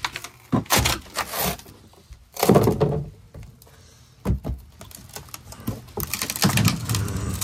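A sawn-out section of fiberglass-covered wooden boat floor being handled and lifted out, with a series of knocks and scrapes of wood and fiberglass. The loudest come about two and a half seconds in and again near the end.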